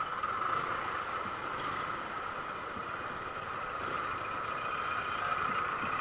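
TVS Apache RTR 160 4V single-cylinder motorcycle running slowly in traffic, with an abnormal steady noise from its exhaust silencer, which the owner puts down to the muffler inside the silencer vibrating loose.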